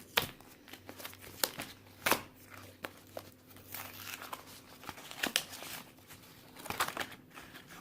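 Puzzle-cube box being ripped open by hand and its packaging crinkled: a string of irregular sharp rips and crackles.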